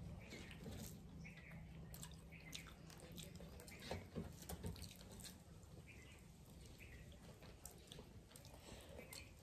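Faint, wet sounds of eating rice and curry by hand: fingers squishing rice on steel plates, with scattered mouth clicks and chewing. A few louder clicks come about four seconds in.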